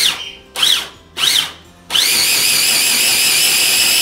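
Electric blender chopping red bell pepper: the motor is pulsed in three short bursts, each whining up and falling back in pitch, then runs continuously with a steady high whine from about two seconds in.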